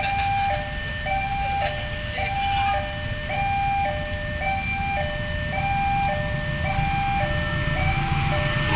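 Railway level-crossing warning alarm sounding its electronic two-tone chime, high and low notes alternating about once a second, signalling an approaching train. A low rumble runs underneath.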